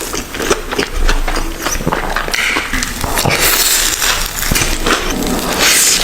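Close-miked eating sounds: chewing and wet mouth noises with many small crackly clicks, and a few short hissing slurps about two, three and a half, and six seconds in.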